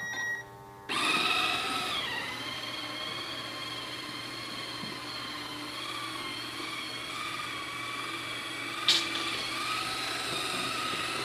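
Robotic vacuum starting up: a short electronic tone, then about a second in its motors and brush come on and run with a steady high whine. There is a brief sharp knock near nine seconds in.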